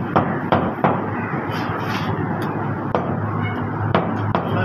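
Meat cleaver chopping mutton on a wooden chopping block: about seven sharp chops at uneven spacing, three close together early on and a quick cluster near the end, over a steady background noise with a low hum that comes in a little past halfway.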